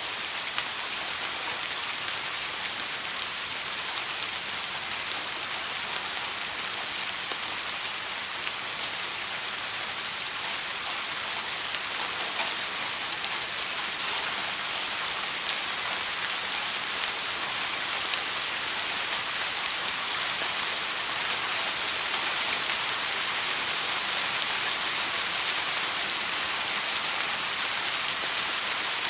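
Steady soft rain: an even hiss of many raindrops pattering on a surface, with no thunder.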